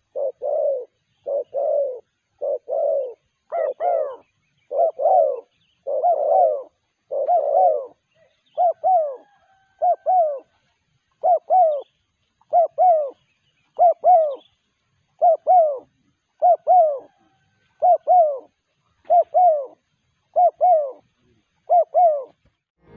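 Spotted dove (terkukur) cooing over and over in short two-note coos, roughly one phrase every second and a bit; the coos sound fuller in the first third and cleaner and more clipped after that.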